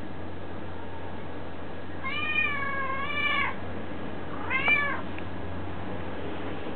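Domestic cat meowing twice: one long, drawn-out meow about two seconds in, then a shorter meow that rises and falls in pitch.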